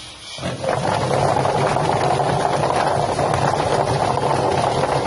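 Drum-type chicken feather plucker machine starting up about half a second in and then running steadily: a constant low hum with a dense rushing noise above it.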